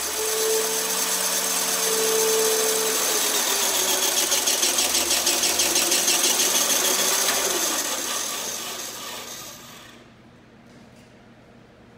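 PowlVac medium-voltage circuit breaker's spring-charging motor running, recharging the closing spring after an operation. It runs as a steady whine that dips slightly in pitch, with a rapid pulsing of about four a second in the middle, then dies away and stops about ten seconds in.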